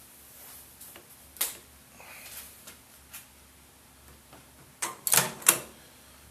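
Clicks and rattles of the fan cover being pulled off beside a microwave's magnetron: one sharp click about a second and a half in, a few faint ticks, then a quick run of loud clicks and clatter near the end.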